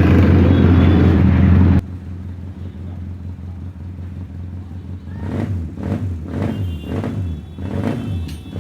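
Freshly overhauled Bajaj CT100 single-cylinder four-stroke motorcycle engine running at raised revs, dropping suddenly to a lower idle about two seconds in. From about five seconds in it is blipped in a series of short revs, about two a second.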